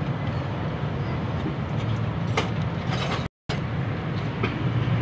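A steady low mechanical hum of workshop background noise, with a few light clicks of hand tools on the engine. The sound cuts out for a moment about three seconds in.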